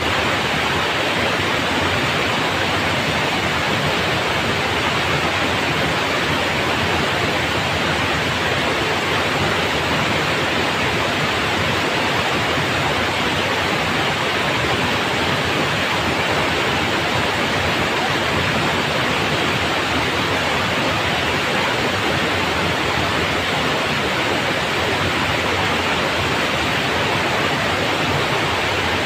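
Steady rushing of water pouring over a low weir into a small river.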